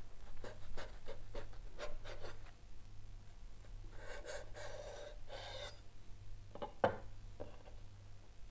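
Chef's knife sawing back and forth through a ham sandwich's bread on a wooden cutting board, a run of short rasping strokes, then a longer scratchy stretch. About seven seconds in comes a single knock as the knife is set down on the board.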